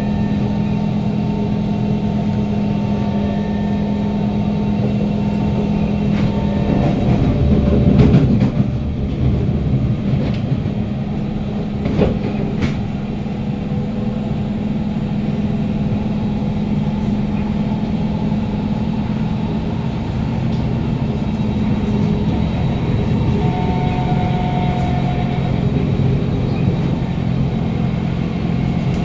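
Inside a moving Kawasaki Heavy Industries C151 metro car: steady rumble of wheels on rail under the hum of its GTO-VVVF traction motors. The rumble swells louder about eight seconds in, and there are a couple of sharp clacks around twelve seconds in.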